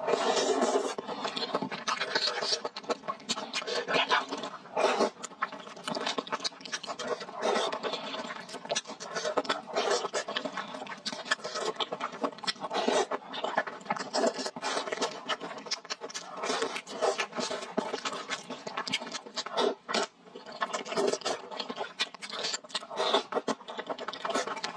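Close-miked eating of thick fried rice noodles: wet chewing and slurping with many quick smacks and clicks, pausing briefly about twenty seconds in.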